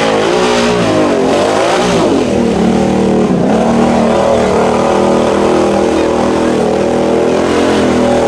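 ATV engine revving hard, its pitch rising and falling for about two seconds, then held at steady high revs.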